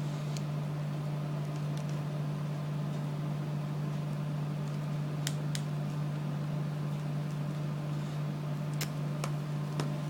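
A steady low mechanical hum runs throughout. A few small sharp clicks come over it, a close pair about halfway through and three more near the end, from tools and small phone parts being handled during reassembly.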